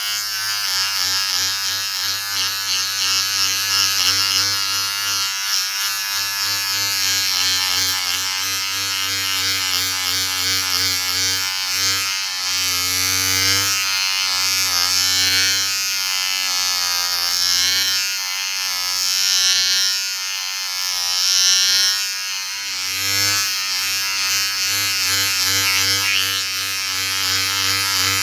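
Electric shaver buzzing steadily, its motor hum wavering slightly in pitch and loudness.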